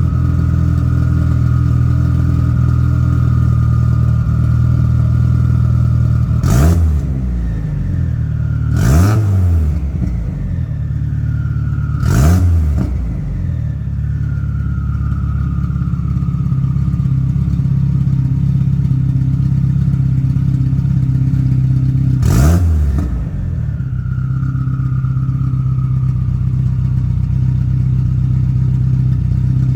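Mazdaspeed 6's turbocharged 2.3-litre four-cylinder running loud and steady through its exhaust, blipped four times: three quick revs in the first half and one more later, each followed by a whine falling away as the revs drop.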